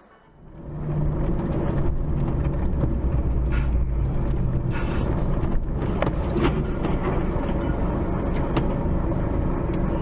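Steady engine and road noise heard inside a moving vehicle, starting about a second in, with a few short, sharp knocks and clicks scattered through it.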